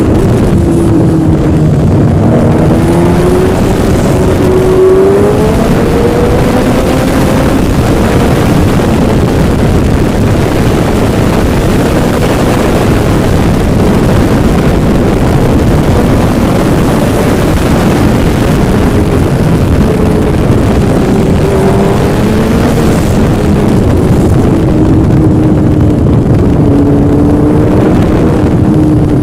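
Yamaha engine running under way, its pitch rising and falling slowly several times as the revs change, under a heavy, steady rushing noise.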